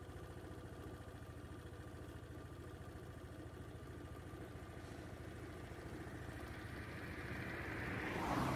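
Vehicle engine idling steadily with a low, even throb, and a louder rushing swell building near the end.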